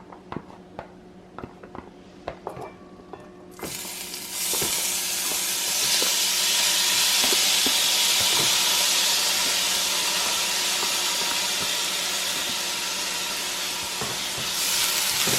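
Light clicks and taps for the first few seconds, then onion and garlic hitting hot oil in a pot: a sudden loud sizzle about three and a half seconds in that carries on steadily as they fry.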